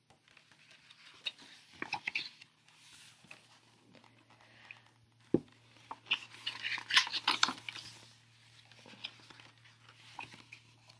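Paper pages of a picture book being handled and turned: scattered rustling and crinkling with soft taps, busiest about six to seven and a half seconds in.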